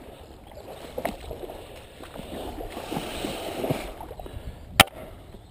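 Shallow stream water running, with irregular rustles and knocks as the angler moves while playing a hooked trout, and one sharp click about five seconds in.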